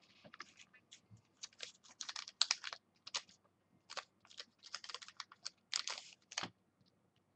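A run of irregular light clicks and short rustles from hands working at a desk, about two or three a second.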